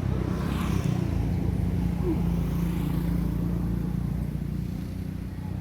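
A motor vehicle's engine running close by: a steady low hum that swells in the first second and eases off toward the end.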